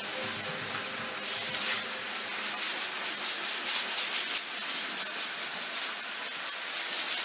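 Power washer's high-pressure water jet spraying, a steady hiss that gets a little brighter about a second in.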